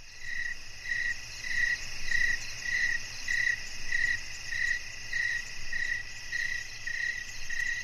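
Crickets chirping: a clear chirp repeats steadily, a little under twice a second, over a continuous high trill.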